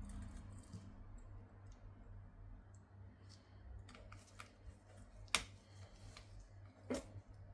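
Small scattered clicks and taps of hand tools and parts during a phone screen repair, with two sharper, louder clicks about five and a half and seven seconds in.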